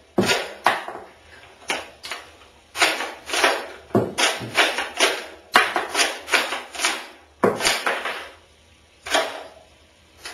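Modified Steyr AUG bullpup rifle being handled and its action worked by hand: an irregular run of sharp metallic clacks and rattles, each ringing briefly, with a short pause about seven seconds in.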